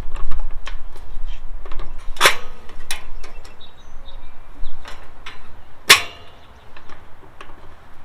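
A run of sharp clicks and knocks, with two louder knocks about two and six seconds in, over a low rumble.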